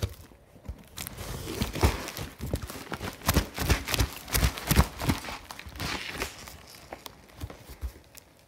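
Cardboard packaging being handled: rustling, scraping and a string of sharp knocks as an inner box is worked out of its outer shipping box, dying away near the end.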